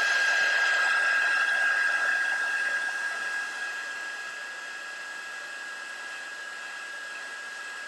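Electric heat gun running, blowing hot air onto a shrink-plastic piece to shrink it: a steady rush of fan noise with a thin high whine. It gets quieter about three seconds in and stays steady after that.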